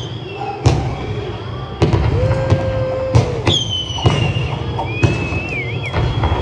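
Theme-ride show audio of cartoon fireworks: three sharp bangs over the first few seconds, the last followed by a whistling falling tone, with a held whistle-like tone between and a steady low rumble under it all.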